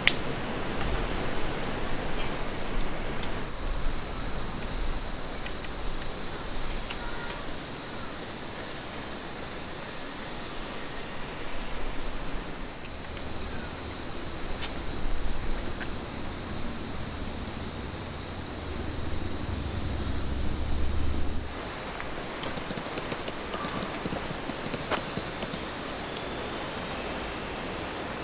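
A dense chorus of summer insects: a steady high shrilling that jumps abruptly up or down in pitch several times.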